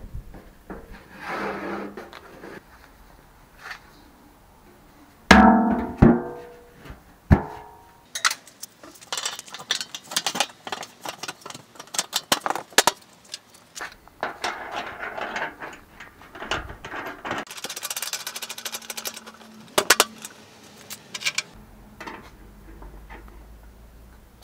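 A steel drum and its lid being handled: a loud metallic clang that rings briefly about five seconds in, then long runs of rapid rattling and clinking of metal.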